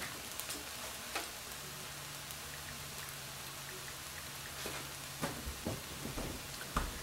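Breakfast burrito filling of potato and egg frying in a nonstick pan, a faint steady sizzle with a few light clicks.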